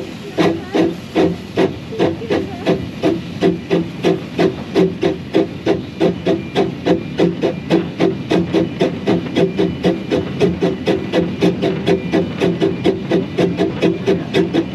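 Exhaust beats of the narrow-gauge steam locomotive Hunslet No 827 "Sybil" chuffing from its chimney while it runs. The beat is steady and quickens from about two to about four beats a second as the engine gathers speed.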